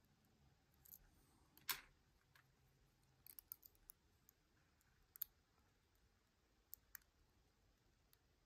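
Faint, scattered metallic clicks of a lock pick working the pin stack of a Harry Bow Chicane challenge lock. A louder click comes about two seconds in, then a quick run of small clicks near the middle and a few single ticks after.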